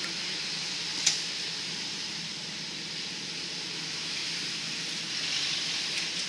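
Steady hiss over a low, even engine hum from an off-road vehicle idling, with one sharp click about a second in.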